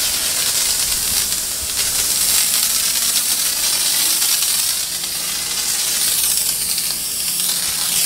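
Handheld electric disinfectant sprayer misting the boxes, a steady hiss.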